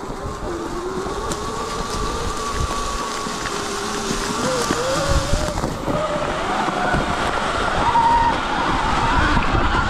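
Sur-Ron electric dirt bike riding, its electric motor and drive whining in two pitches that wander and climb with speed, most steeply about halfway through. Low rumble and scattered thumps run underneath.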